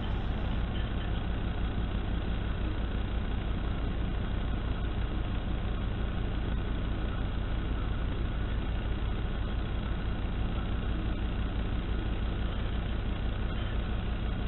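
Traxxas TRX-4 RC crawler running, heard through its FPV camera's audio link as a steady low buzzing drone with hiss, dull and cut off above the mid frequencies.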